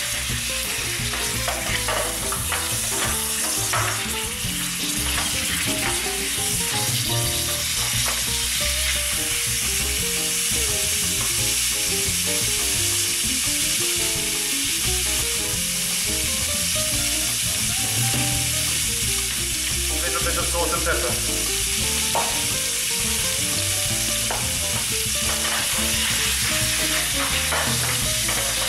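Rib pieces sizzling steadily in hot oil in a stainless steel roasting tin as they are seared on all sides, with a wooden spatula scraping the tin and turning the meat now and then.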